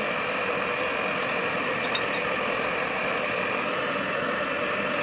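Electric stand mixer's motor running steadily, its twin beaters whirring through thick cake batter in a glass bowl.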